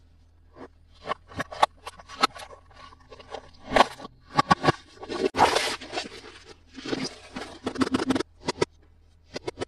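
Hands unboxing toys, handling plastic and cardboard packaging: irregular clicks, crinkles and scrapes, with a longer rustling burst about five seconds in.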